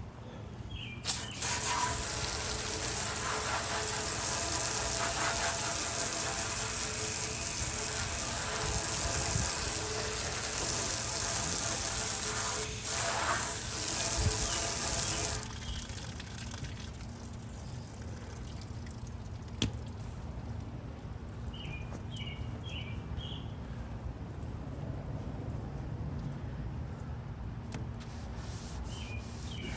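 Running water splashing onto a porcelain sink, rinsing off scouring powder. It stops abruptly about fifteen seconds in, leaving a quieter background with a few short, high chirps.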